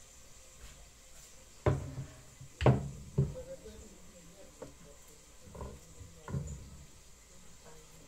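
Kitchen clatter: a handful of dull knocks from cookware and utensils being handled. The two loudest come a little under two and about three seconds in, with softer ones later.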